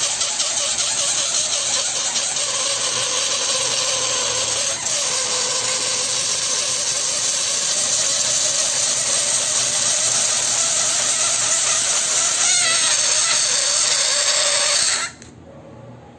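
Electric balloon inflator pump running steadily: a motor hum under a rushing hiss of blown air, its pitch sagging briefly twice, then switching off abruptly about fifteen seconds in.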